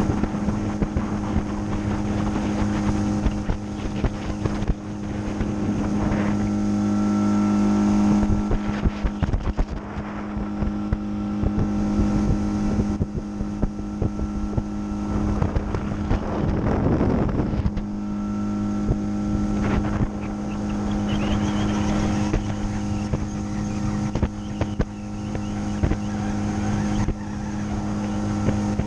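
Outboard motor running steadily at an even pitch, driving a boat along, with wind on the microphone and a brief rush of wind noise just past the middle.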